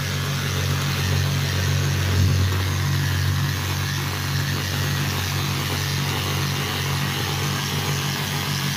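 Handheld electric polisher running steadily with an 800-grit pad, wet-polishing a scratch out of a vanity top: a steady motor hum with a hiss above it.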